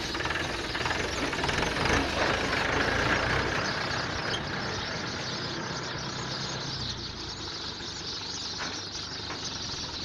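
A dense chorus of many sparrows chirping at once as they settle into a thick bush to roost at dusk. A low rumble runs underneath and fades about two-thirds of the way through.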